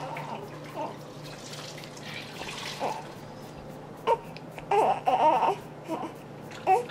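Newborn baby fussing in short whimpering cries. The longest spell of crying comes about five seconds in, with another brief cry near the end.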